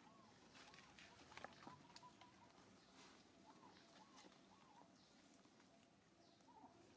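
Near silence: faint outdoor ambience with soft, short calls repeated in small groups, three in a row near the middle, and a few light ticks.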